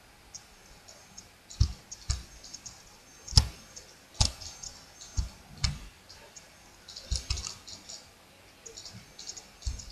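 Computer keyboard keys and mouse buttons clicking irregularly: several sharper clicks in the first half, and lighter quick tapping near the end.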